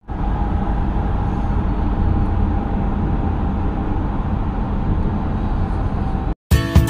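Steady road and engine rumble heard inside the cabin of a vehicle driving at speed. It cuts off suddenly near the end and strummed acoustic guitar music begins.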